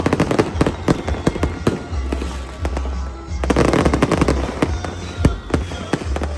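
Fireworks going off in a dense, rapid string of bangs and crackles, with music underneath.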